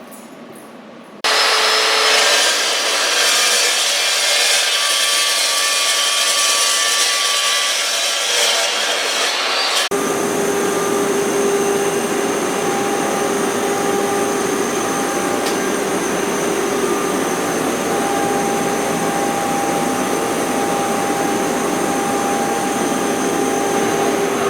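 A power tool running steadily on steel pipe, such as a saw or grinder. It starts abruptly about a second in and changes sound about ten seconds in, as if a second tool or cut takes over.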